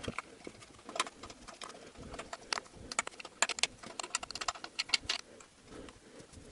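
A wrench loosening the last bolts of a transmission oil pan: irregular sharp metallic clicks and taps, coming in quick runs about halfway through.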